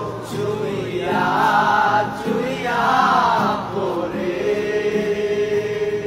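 Men's voices singing a Bengali song together, the line ending on a long held note over the last two seconds.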